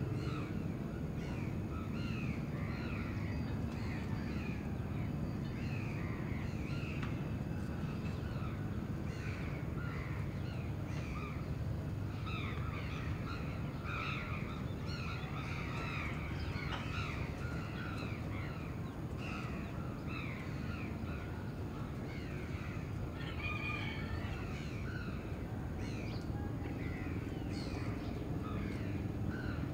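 Crows cawing again and again, many short calls overlapping, over a steady low rumble of city noise.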